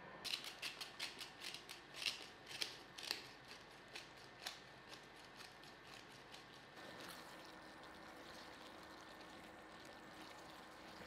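Hand-held pepper grinder twisted over a pan of food: a quick run of dry crunching clicks, about four or five a second at first, that slows and stops about six seconds in. A faint steady hum follows.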